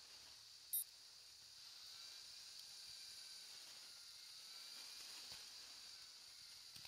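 Very faint, steady high hiss with the faint whine of an electric scooter's motors slowly rising and falling in pitch. A brief high beep or chirp comes about a second in.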